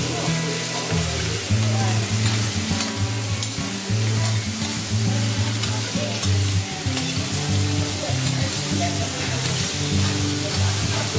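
Lobster halves sizzling on a hot teppanyaki griddle, with a steel spatula and fork scraping and tapping against the plate and a few sharp clicks about two to three seconds in.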